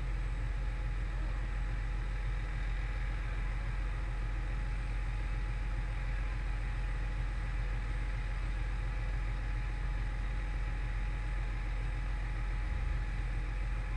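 Steady low rumble of the emergency vehicle's engine and road noise, heard from inside the cab as it creeps forward.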